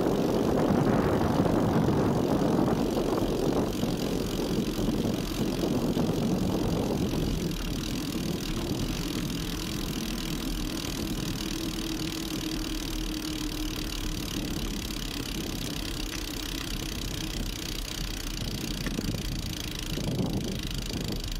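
Mountain bike coasting on asphalt without pedalling: the knobby tyres make a rolling noise that fades over the first several seconds as the bike slows, then stays low and steady.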